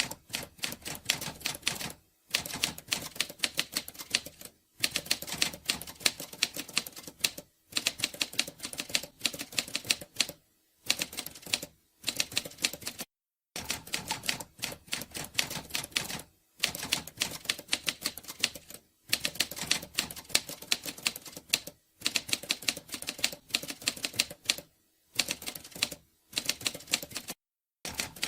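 Rapid typing: quick key strikes, several a second, in runs of a few seconds each, broken by short pauses.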